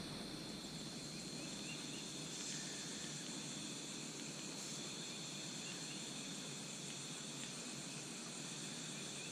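Faint night insect chorus: a steady high drone with a few short chirps now and then, over a low even hiss of open-air ambience.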